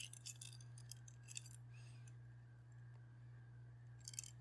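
Faint, scattered clicks of small metal clockwork parts of a wind-up kitchen timer being handled while it is taken apart: a few near the start and a short cluster near the end. A steady low hum runs underneath.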